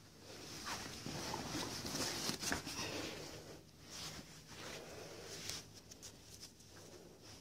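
Rustling and handling noise, with scattered light clicks. It is loudest between about one and three seconds in and eases off after that.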